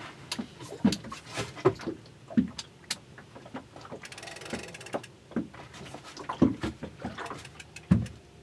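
A small boat rocking at sea: irregular low knocks and water slaps against the hull, with a short run of fast clicks from a fishing reel about four seconds in.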